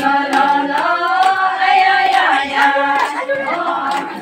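A group of women singing a folk song together, holding long notes that glide in pitch, with faint rhythmic hand clapping.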